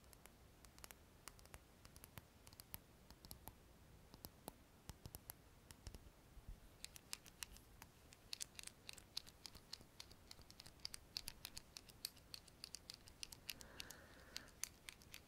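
Faint, close-miked clicks and light scratches of small objects being handled, scattered at first and coming thicker and crisper from about halfway through, with a brief soft hiss near the end.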